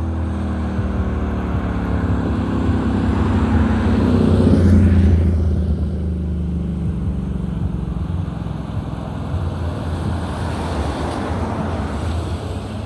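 Motor vehicle noise: a steady low engine and road hum that grows louder to a peak about five seconds in, then eases off.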